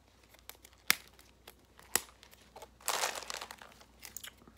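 Candy packaging crinkling and rustling as it is handled: two sharp clicks, then a longer crinkle about three seconds in, and a few light ticks near the end.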